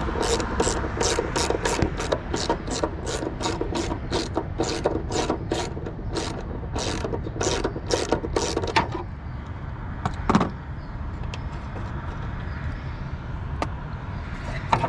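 10 mm socket ratchet clicking steadily, about three clicks a second, as it turns a nut loose. The clicking stops about nine seconds in, and one sharp clink follows about a second later.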